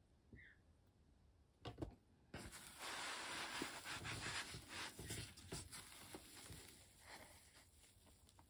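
Hands handling and folding the thick vinyl and stabilised lining of a tote bag's seam corner: soft rustling and scraping of the materials rubbing together. It starts suddenly a little over two seconds in, after a near-quiet opening with a couple of faint clicks.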